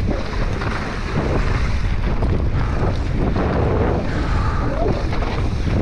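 Wind buffeting the microphone of a camera on a mountain bike at speed downhill, mixed with the tyres rolling over loose gravel and stones and the bike rattling over the bumps.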